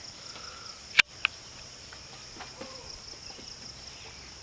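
Steady high-pitched insect chirring, with one sharp click about a second in and a softer click just after.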